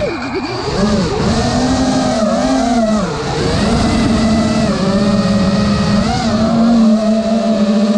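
FPV quadcopter's four iFlight CyberXing 1777KV brushless motors and PBnJ props whining, heard from the GoPro on the quad itself; the pitch holds mostly steady but dips and comes back a few times as the throttle changes.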